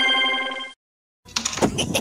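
An electronic ringing sound effect, a stack of steady trilling tones, that cuts off under a second in. About half a second later a rapid pulsing sound effect starts, at about six or seven pulses a second.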